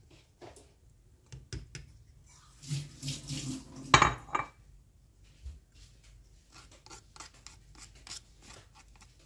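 A silicone spatula scraping thick sweet soy sauce off a bowl and a stone pestle and stirring it into ground peanuts in a stone mortar. The sound is soft scrapes and light clicks, with one sharp knock about four seconds in.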